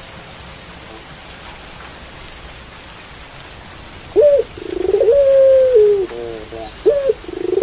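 A caged puter pelung, a domestic ringneck (Barbary) dove, cooing from about four seconds in: a short rising note, a rolling purr, then a long held note that falls away at its end, followed by a few shorter, lower notes and a second short note and purr near the end. Steady rain hiss runs underneath.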